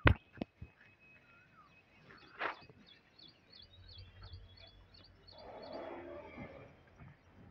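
A bird chirping in a quick, regular series of short high chirps, several a second, over a faint low rumble. A few clicks come near the start and a short noisy rustle about six seconds in.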